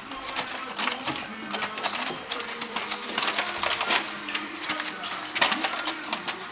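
Newspaper lining rustling and crackling irregularly under toy terrier puppies' paws as they scramble about, with louder crackles about three and a half seconds in and again about five and a half seconds in.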